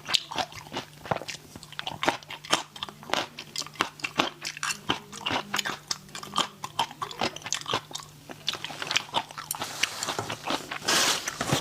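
A person biting and chewing spicy raw shrimp, with quick crunchy clicks several times a second. A brief louder rushing sound comes near the end.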